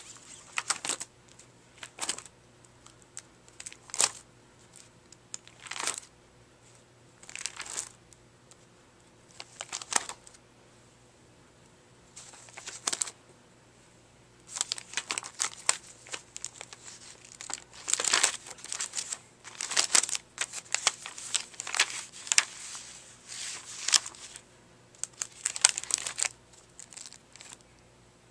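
Clear plastic sleeve pages of a ring-binder album crinkling as they are handled and turned. The page turns come about every two seconds at first, then give way to busier, near-continuous rustling from about halfway through.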